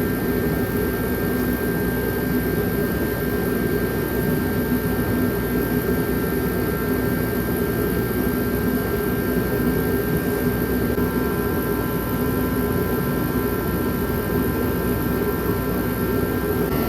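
Forced-air kerosene heater running with a steady, even noise and a few faint steady tones, loud enough to talk over.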